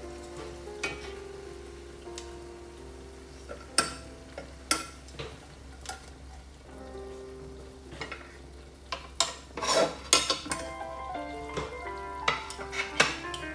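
Metal tongs and wooden chopsticks knocking and scraping against an enamelled pan as cooked soy-sauce chicken is lifted out of its simmering sauce, with the sauce sizzling; sharp clicks come in scattered bunches, most of them in the second half. Soft background music plays underneath.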